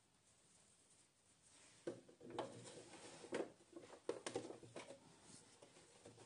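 Near silence, then from about two seconds in faint, irregular rustles and light clicks as a knit T-shirt is handled and fitted under a sewing machine's presser foot.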